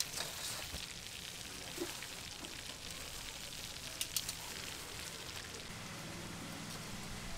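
Deep-frying oil sizzling faintly, a steady crackling hiss, with a couple of light clicks about four seconds in.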